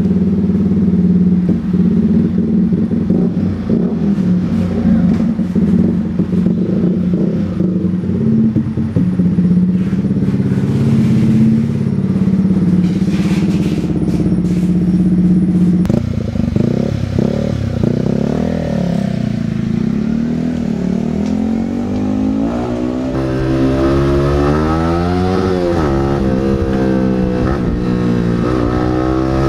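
Yamaha R15's single-cylinder engine through an SC Project slip-on exhaust with its silencer insert fitted, running at a steady pitch at first, then from about halfway revving up and down in repeated rising and falling sweeps as the bike is ridden through the gears.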